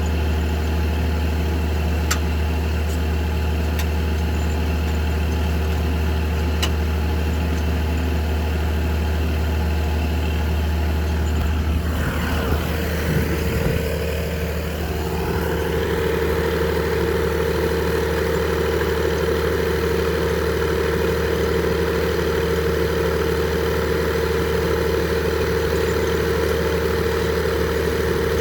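Frick circular sawmill running, its power unit's engine droning steadily along with the spinning saw. About halfway through, the pitch sweeps downward with a few knocks, then settles into a steady hum with a stronger whine.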